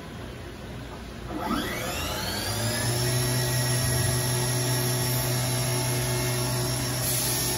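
Haas VF-6 vertical machining center's spindle spinning up about a second and a half in, its whine rising in pitch, then running steady at speed with a high whine over a low hum.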